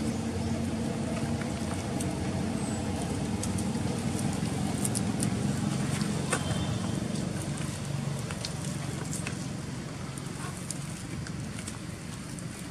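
A motor vehicle's engine running with a steady low hum that fades after about eight seconds, over scattered crackles and clicks of macaques handling dry sugarcane stalks and leaves.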